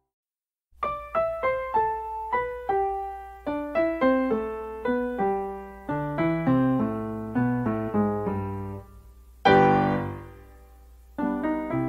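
Background piano music: a melody of single notes that starts after a brief silence, with a louder chord near the end.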